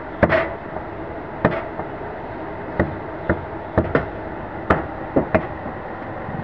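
Meat cleaver chopping beef on a round wooden log block: about ten sharp, unevenly spaced chops, some in quick pairs, over a steady background noise.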